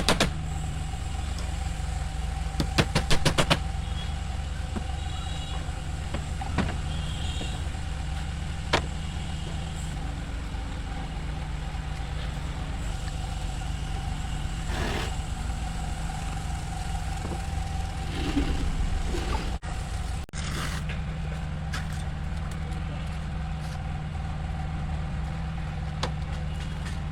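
A steady low machine hum, like an idling engine, with two short bursts of rapid clicking near the start.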